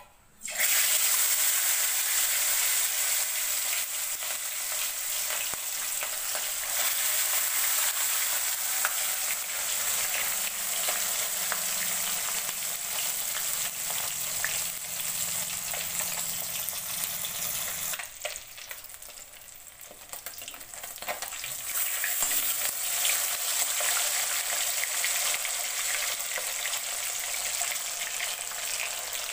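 Pieces of pohala fish frying in hot mustard oil in an aluminium kadhai: the oil starts to sizzle loudly about half a second in as the fish goes in. It keeps up a steady frying hiss, softening for a few seconds about two-thirds of the way through before it rises again.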